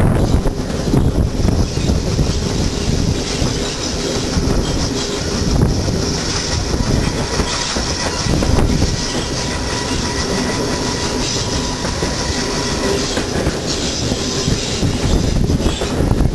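Steam-hauled heritage train running along the line, its wheels clattering over the rail joints, with wind buffeting the microphone.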